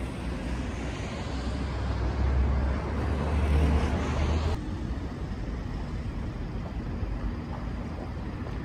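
Street traffic noise with a low rumble that swells about three seconds in, then drops off abruptly at about four and a half seconds, giving way to a steadier, lighter background of traffic.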